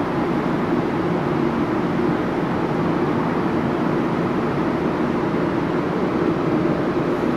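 An engine running steadily, a constant low drone with a hiss over it.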